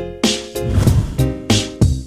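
Upbeat funky background music with a steady drum beat and guitar.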